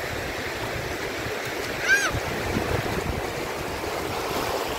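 Small sea waves washing up over the sand at the water's edge: a steady hiss of surf. About two seconds in, one short high-pitched squeal rises and falls.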